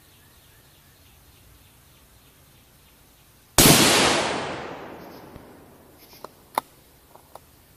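A single shot from a 6mm Creedmoor bolt-action rifle: a sharp crack about three and a half seconds in, its echo dying away over about two seconds. A few light clicks follow near the end.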